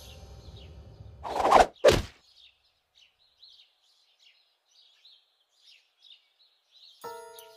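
Cartoon sound effects: two quick, loud whooshes about a second and a half in, the second short and sharp. Then faint songbird chirps scattered through the quiet. Near the end a ringing, chime-like tone starts.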